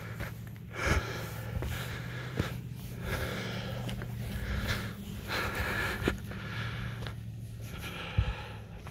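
Heavy, rapid breathing of a person out of breath from hiking uphill at about 6,000 feet. Under it the Range Rover L322's engine hums low until near the end, with a couple of thumps, about a second in and near the end.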